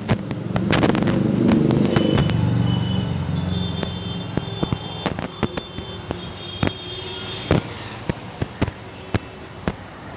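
Firecrackers and fireworks going off: many sharp bangs and pops at irregular intervals, with a low rumble through the first few seconds.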